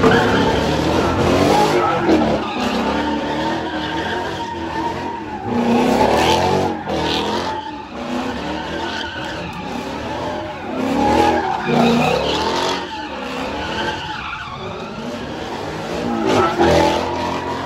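A car doing donuts: tyres squealing and skidding while the engine is held at high revs, the revs rising and falling in repeated swells.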